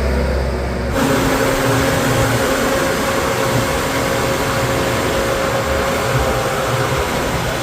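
Diesel engine of a tractor or backhoe loader running steadily. About a second in the sound changes abruptly to a louder, hissier running with a steady whine.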